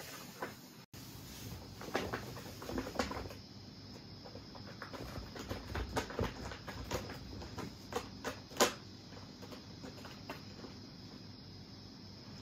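Kittens scampering over a corrugated-cardboard cat scratcher and carpet: scattered light taps, scratches and soft thumps of paws, irregular in rhythm, with the sharpest knock about two thirds of the way through.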